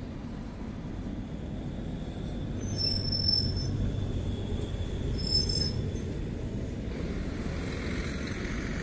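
Articulated low-floor Pesa tram passing close by with a steady low rumble that builds as it nears. Its wheels give two short high-pitched squeals on the rails, one about 3 seconds in and one about 5 seconds in.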